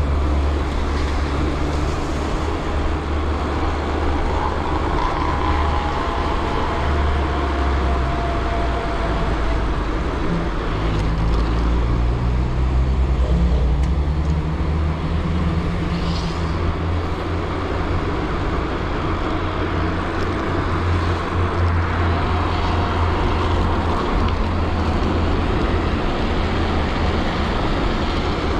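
Road traffic heard from a moving bicycle: a steady low rumble with cars and heavier vehicles passing. One vehicle's engine note rises and falls about halfway through.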